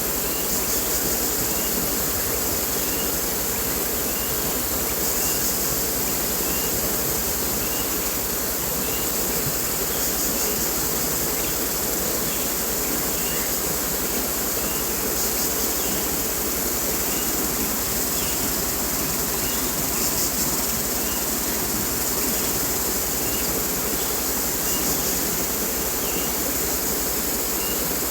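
Forest ambience: a steady rush of flowing stream water under a high insect chorus that swells about every five seconds, with a small chirp repeating about once a second.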